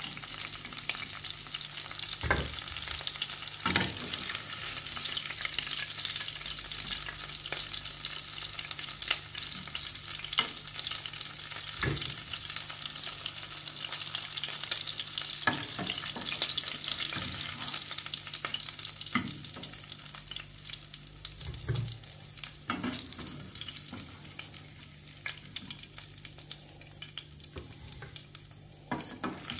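Chicken back pieces sizzling in hot oil in a stainless steel frying pan, with a metal spoon clicking and scraping against the pan every few seconds as pieces are lifted out. The sizzle is quieter near the end, once the pan is nearly empty.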